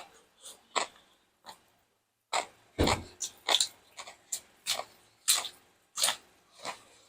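Loud, close-up chewing and crunching of crispy food, one sharp crunch after another at about two or three a second, with a short pause near two seconds in.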